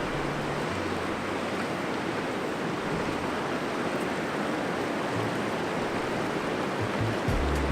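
Steady rushing noise of wind and breaking waves along the shore.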